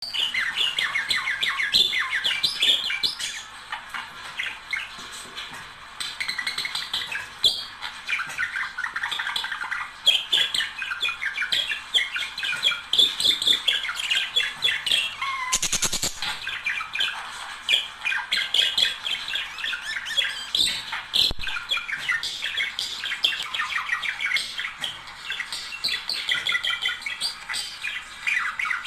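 A busy chorus of many birds chirping at once, short calls overlapping without pause. A short burst of noise cuts across it about halfway through.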